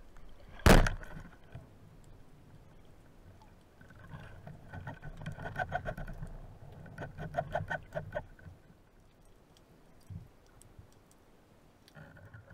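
A wooden band-powered speargun fires underwater with one sharp, loud crack about a second in. A few seconds later come rapid clicking and rattling over a low rumble, lasting about four seconds, as the shaft and line are worked with a speared fish on them.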